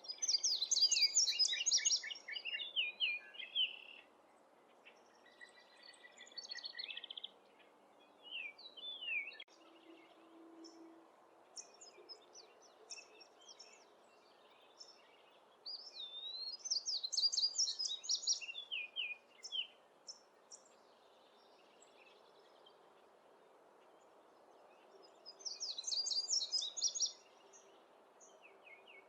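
A wild songbird singing, repeating phrases of rapid, high, varied notes every several seconds, over a steady low background hum of outdoor noise.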